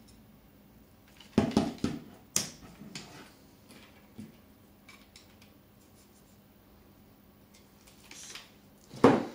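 End caps being pushed onto the limb tips of a pistol crossbow's bow, with handling clicks and knocks: a cluster of sharp clicks about a second and a half in, a few single ones over the next few seconds, and a louder knock near the end.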